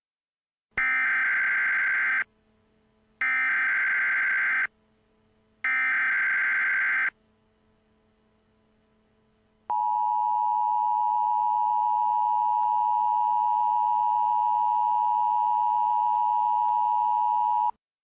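Emergency Alert System SAME header: three identical bursts of warbling data tones, each about a second and a half long, marking the start of a severe thunderstorm warning. After a short gap comes one long steady alert tone of about eight seconds, which cuts off near the end.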